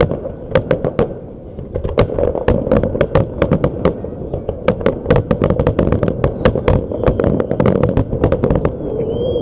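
Aerial firework shells bursting in a rapid barrage, many sharp bangs a second in close succession, which stop shortly before the end.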